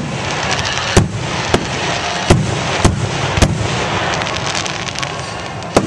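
Aerial fireworks shells bursting: five sharp bangs about half a second apart from about a second in, lighter crackling between them, and another bang near the end.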